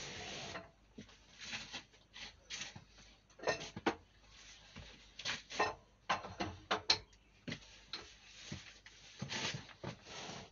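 Scattered clicks, knocks and rubbing of hands and metal parts on an Armstrong Siddeley stationary diesel engine as it is worked on by hand; the engine is not running.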